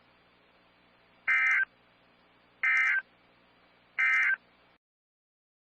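Emergency Alert System end-of-message data tones: three short digital bursts about 1.3 seconds apart, marking the end of the warning message. A faint hiss and hum lie under them and cut off about five seconds in.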